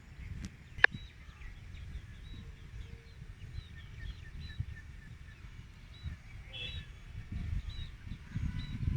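Birds chirping, many short repeated calls, over a low, uneven rumble, with one sharp click about a second in.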